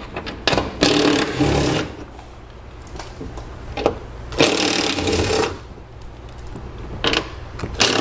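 A cordless power tool running in short bursts of about a second, several seconds apart, as it spins off the 10 mm nuts holding a car door's window regulator.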